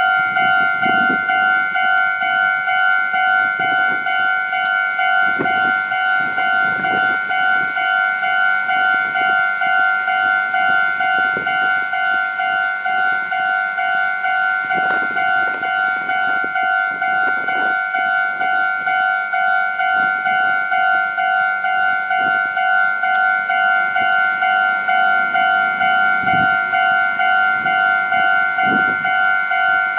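Japanese railway level-crossing warning bell ringing steadily in a fast, even, repeating ding-ding rhythm, with scattered low knocks and rumbles beneath it.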